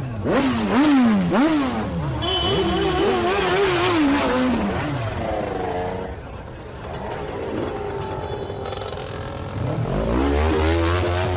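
Motorcycle engine revving in quick up-and-down blips, then held at high revs before the revs fall away. The engine runs lower and quieter for a few seconds, then revs rise again near the end.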